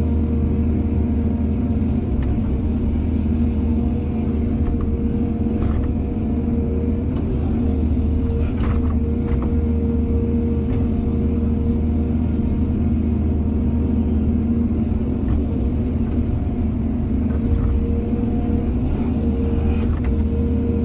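Excavator's diesel engine running steadily under load, with a few brief knocks scattered through it.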